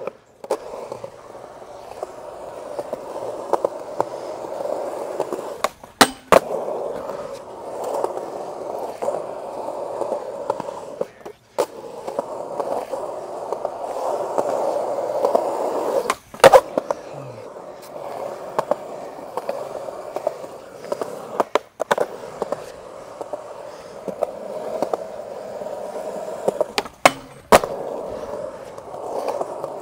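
Skateboard wheels rolling steadily over smooth concrete, broken by a handful of sharp clacks of the board striking the ground, some in quick pairs.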